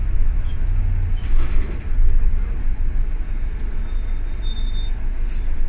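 Bus engine and drivetrain running, heard inside the passenger cabin, with a steady low rumble and a few brief rattles. A low hum that fills the start drops away about a second in.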